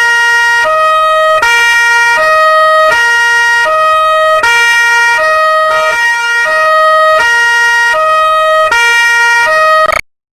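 Two-tone police siren alternating steadily between a lower and a higher pitch, each held for about three-quarters of a second. It cuts off abruptly near the end.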